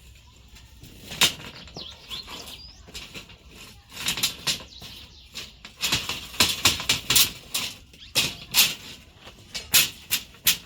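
Metal pieces and tools clicking and clanking in short, irregular, bright strikes, a few at first and then a quick scattered run of them from about four seconds in.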